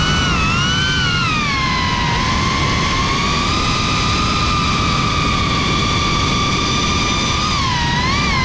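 Brushless motors and propellers of a GEPRC Cinelog 35 ducted FPV drone whining in flight, recorded by the onboard camera. The pitch rises and falls with the throttle for the first two seconds and again near the end, and holds steady in between, over rushing wind noise.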